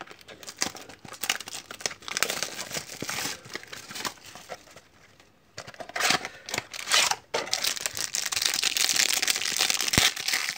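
Hands opening a small cardboard trading-card box and handling the cards inside: continuous rustling and crinkling of card and packaging, with a short lull near the middle and busier rustling afterwards.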